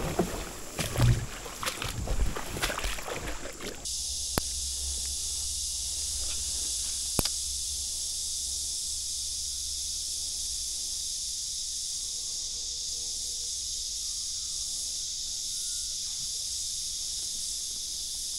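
Knocks and water sloshing around a kayak for the first few seconds, then a steady high-pitched insect chorus, with a low rumble beneath it for a few seconds and two single sharp clicks.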